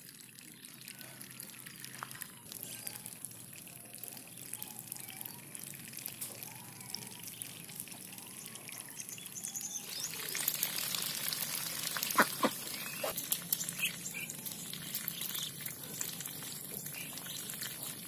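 Ducks drinking and dabbling in shallow water: a steady trickling, lapping water sound that grows louder about ten seconds in, with a few sharp splashes shortly after.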